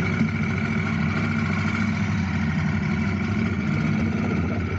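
Husqvarna Norden 901's parallel-twin engine idling steadily.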